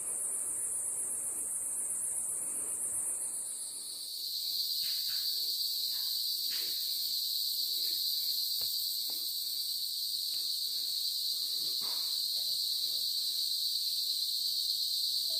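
Steady high-pitched insect chorus from the forest, its buzz shifting about three seconds in to a lower, fuller whine. Scattered light snaps and crunches of footsteps on dry leaf litter and twigs run under it.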